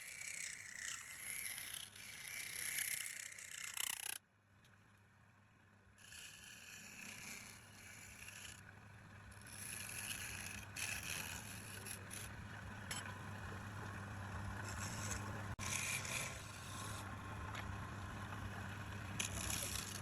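Wood lathe running, with a cutting tool scraping against the spinning wood. The sound drops out abruptly about four seconds in, then returns as a steady motor hum with intermittent scraping.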